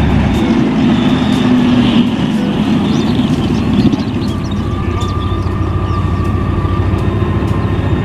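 Military tank driving over a sandy track: its engine running steadily with a dense rapid clatter from the tracks.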